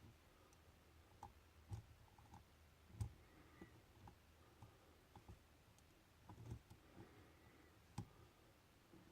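Faint, irregular clicks and taps of a lock pick and tension wrench working inside a Lockwood pin-tumbler lock, with a few sharper ticks about 3 and 8 seconds in.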